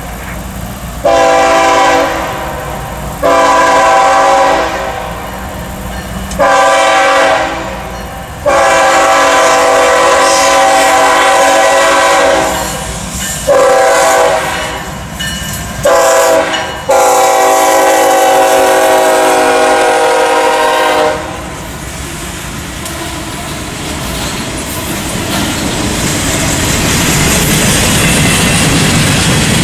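Horn of a CSX diesel freight locomotive blaring a long series of long and short blasts as it passes a grade crossing. About 21 seconds in the horn stops, leaving the rumble and clickety-clack of freight cars rolling by, growing louder toward the end.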